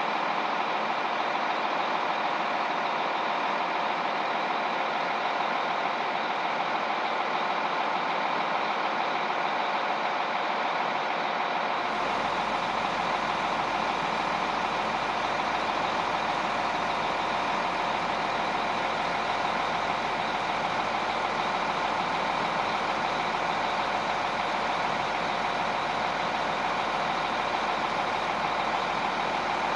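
A heavy vehicle's engine running steadily, with no rise or fall in level. A low hum joins about twelve seconds in.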